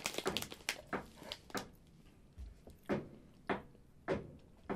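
Plastic snack packet crinkling as it is handled: a quick run of crisp crackles, then single crackles about every half second.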